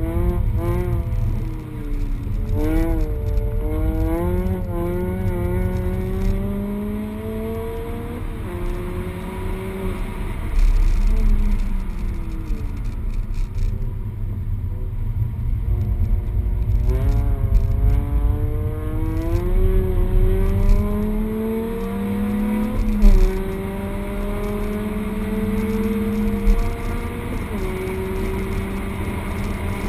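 Peugeot 208 GTI's 1.6-litre turbocharged four-cylinder heard from inside the cabin at hard acceleration: the engine note climbs steadily and drops at each upshift, about a third of the way in and twice near the end, with a stretch of falling revs in the middle as the car slows for a corner. Underneath runs a constant heavy rumble of road and tyre noise.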